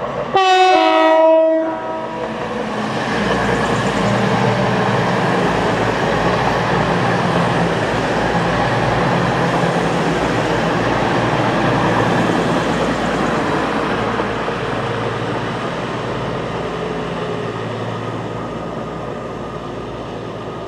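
A Class 222 Meridian diesel multiple unit sounds a brief, loud horn blast, then passes at speed with a rush of wheel and engine noise, which fades as the train moves away.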